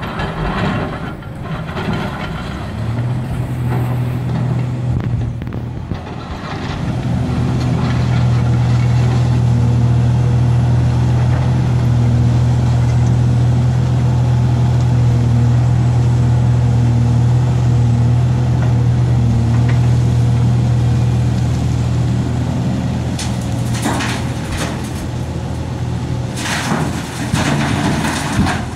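Heavy excavator diesel engine running steadily under load as it digs and swings. Near the end, several crashes of rock and soil are dropped into a steel dump-truck bed.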